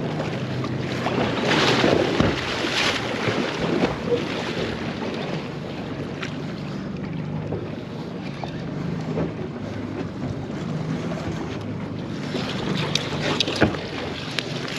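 Boat motor running steadily at low speed, with wind buffeting the microphone and water noise; louder gusts of noise a couple of seconds in, and a few sharp knocks near the end.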